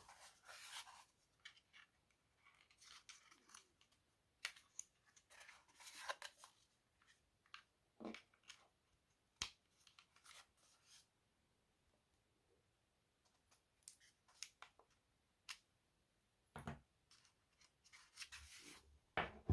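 Faint handling noises: scattered light clicks, taps and brief rustles as the portable air compressor and its kit are handled, with quiet stretches between.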